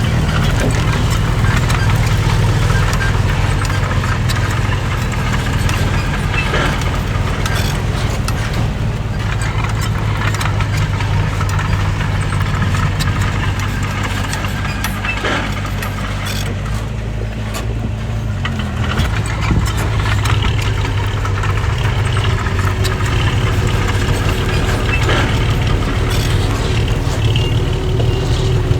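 Bulldozer's heavy diesel engine running steadily, with clanking and rattling over it. The engine note changes about two-thirds of the way through.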